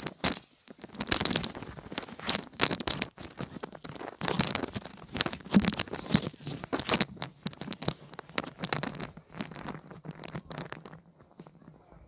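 Close rustling and crinkling of something being handled right by the microphone, in irregular bursts that die down near the end.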